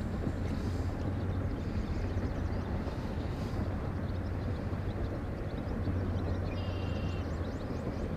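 A steady low mechanical drone, like a boat motor running, with a brief high chirp about seven seconds in.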